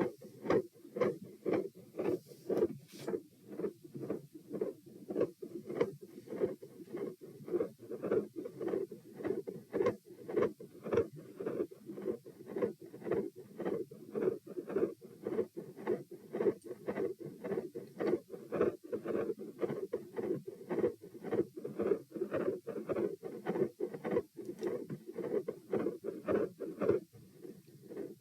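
Human heartbeat recorded through the chest wall: fast but not very loud, a regular beat of about two a second.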